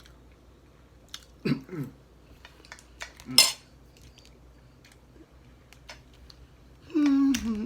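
Cutlery clinking and tapping on plates during a meal, with one sharp, loud clink about three and a half seconds in. A short pitched voice sound, like a hum, comes near the end.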